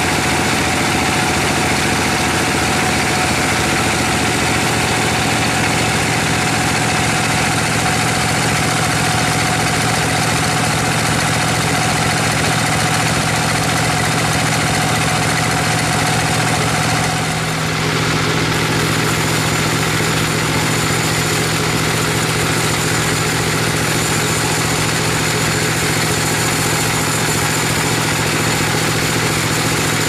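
Sawmill machinery running steadily: the stationary engine that drives a large band saw makes a constant, loud mechanical drone with a steady hum. It dips briefly and changes in tone about seventeen seconds in.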